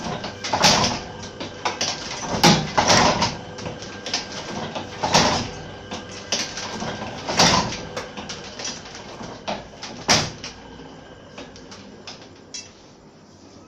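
A 50-year-old letterpress platen press running, its platen clacking shut with a loud stroke about every two and a half seconds as each sheet is printed. Lighter clicks and paper rustles come between the strokes, and the strokes stop near the end.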